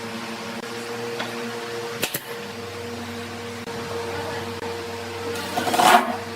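A small electric motor hums steadily, with a sharp click about two seconds in and a louder burst of rasping noise near the end.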